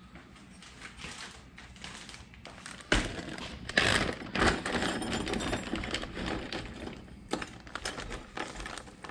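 Hands rummaging through loose metal hardware: a rapid clatter of clicks and rattles. It grows loudest from about three seconds in and thins to scattered clicks near the end.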